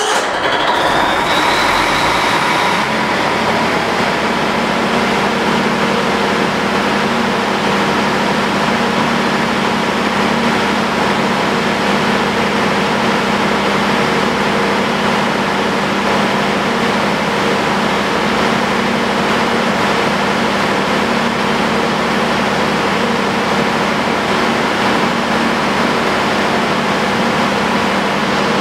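Large 500 kVA diesel generator set running steadily under test, a loud, even machine drone with fixed hum tones. A rising whine over the first couple of seconds as the engine comes up to speed after starting.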